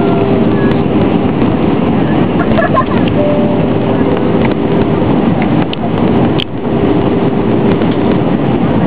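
Steady cabin noise inside an Airbus A320-family airliner in flight: an even rush of airflow and jet engines with a steady hum, heard from a window seat. A single sharp click about six and a half seconds in.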